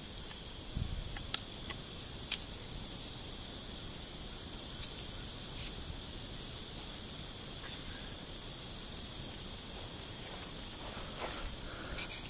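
Steady, high-pitched chorus of field insects chirping, with a couple of light ticks and some rustling near the end.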